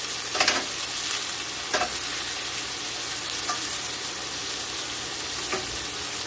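Sliced leeks and onion frying in a stainless steel sauté pan with a steady sizzle, stirred with a utensil that clicks against the pan a few times.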